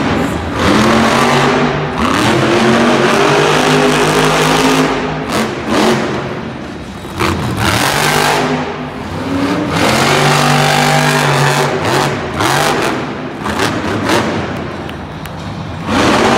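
Monster truck's supercharged V8 revving hard and easing off again and again during a freestyle run, its pitch climbing and dropping, with brief lulls about seven, nine and fifteen seconds in and a fresh surge near the end.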